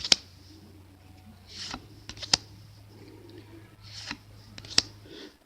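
Pokémon trading cards being flipped through one at a time: a soft swish as a card slides off the stack, then a sharp snap, three snaps about two and a half seconds apart. A low steady hum lies underneath.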